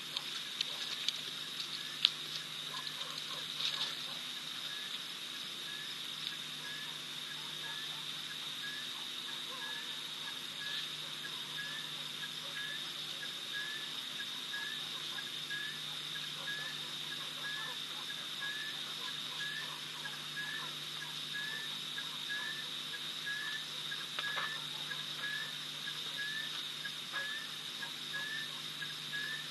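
Night insect chorus: a steady high-pitched trill, with a second caller chirping about once a second. A few sharp clicks in the first few seconds, one of them louder than the rest.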